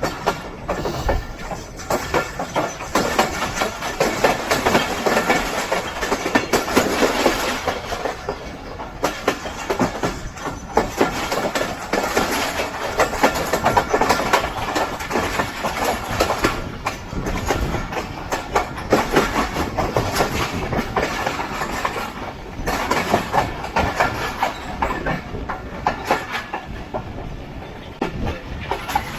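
Passenger train running, heard from on board: its wheels clatter over the rail joints and points in a dense, uneven stream of clicks and knocks over steady running noise.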